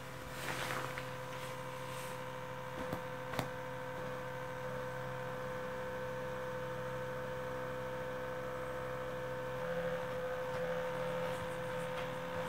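A small elongated vibrating device buzzing steadily under a duvet; its hum changes, dropping a lower tone in and getting a little louder, about ten seconds in. A few short soft knocks in the first few seconds.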